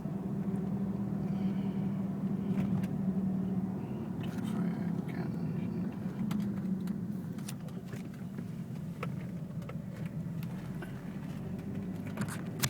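Audi A4 1.8T's turbocharged four-cylinder engine running steadily while the car is driven, heard from inside the cabin, with scattered light clicks and rattles.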